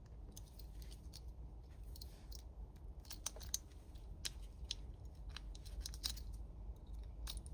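Faint scattered clicks and scratches of a twin-peak hybrid lock pick being worked into the keyway of a Burg Wachter Splash laminated padlock.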